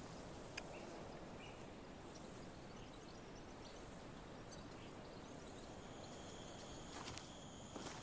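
Faint outdoor background hiss with a few soft clicks; about six seconds in, a steady high-pitched insect drone comes in.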